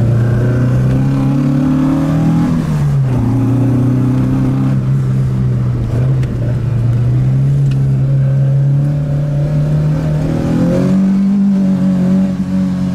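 Alfa Romeo GT 1600 Junior's twin-cam four-cylinder engine pulling under way, heard from inside the cabin. Its note climbs, drops sharply about three seconds in, rises slowly again and steps higher near the end.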